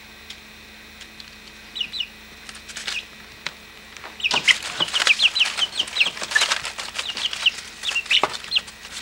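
Young chickens peeping in short high chirps with scuffling and rustling. The sounds are sparse at first, then about four seconds in become busy and loud, many peeps a second over the rustling.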